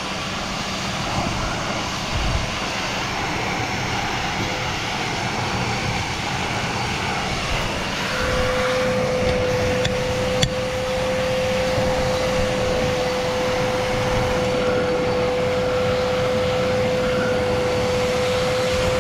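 Wet/dry shop vacuum running steadily, its hose sucking dirt and debris out of an irrigation valve box. About eight seconds in, a steady whistle joins the motor noise and holds.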